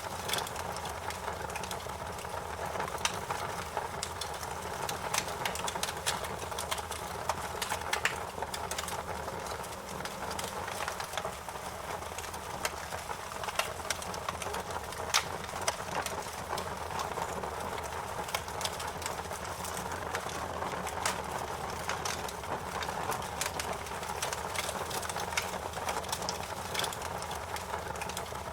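Wood fire crackling: frequent sharp pops and snaps over a steady hiss of burning.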